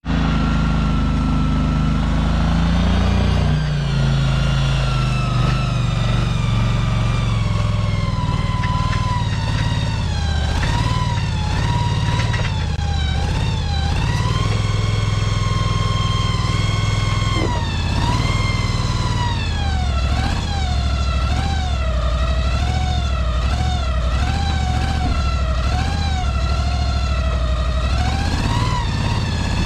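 A motor running steadily with a low hum, under a whine that keeps wavering up and down in pitch.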